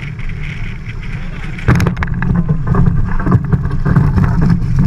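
Wind and rushing water on a racing catamaran's onboard camera, a choppy low rumble with spray hiss. A little under two seconds in, a sudden louder burst of splashing and rushing sets in and stays loud.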